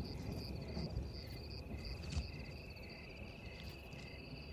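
Insects chirping in the bush: several overlapping trills and a steady run of short repeated chirps, over a faint low rumble.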